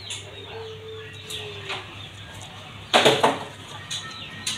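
Sugar glider chewing a piece of tomato close to the microphone: wet, clicky smacking sounds, loudest in a quick cluster about three seconds in, with a faint steady tone lasting about a second near the start.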